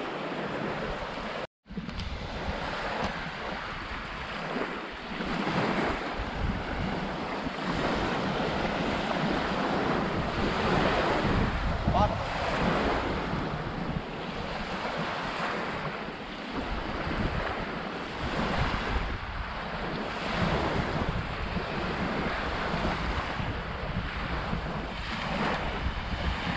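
Small waves breaking and washing up a sandy shore, swelling and easing every couple of seconds, with wind buffeting the microphone.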